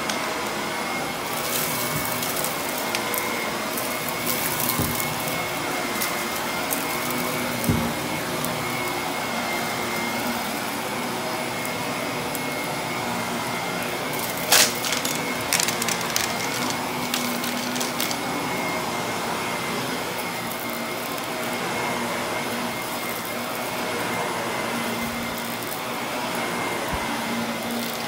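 Household vacuum cleaner running steadily with a thin high whine. About halfway through there is a sharp click, followed by a few seconds of crackles and ticks, as bits of debris are sucked up.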